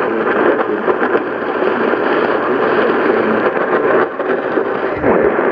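NOAA weather radio receiver playing a loud, steady static hiss, with the synthesized voice reading the flash flood warning buried and barely made out beneath it.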